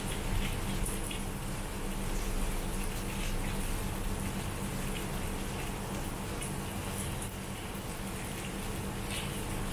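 Heavy rain falling steadily, a constant hiss with a few brief louder drops and splashes.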